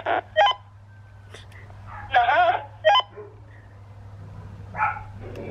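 Tinny, thin voices answering through a handheld kids' walkie-talkie's speaker in two short transmissions. Each one ends in a brief beep. A fainter burst comes near the end.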